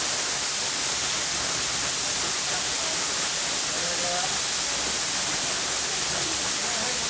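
Steady rushing hiss of a waterfall, even in level throughout, with faint distant voices now and then.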